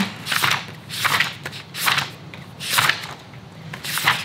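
Paper pages of a spiral-bound recipe notebook being flipped: five quick papery swishes, about one a second.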